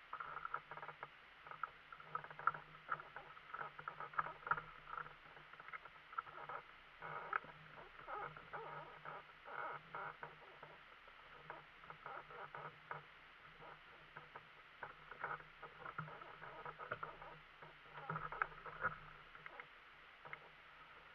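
Faint, irregular clicking, tapping and rustling as someone handles the fittings and straps of a microlight trike close to its mounted camera, over a faint steady low hum.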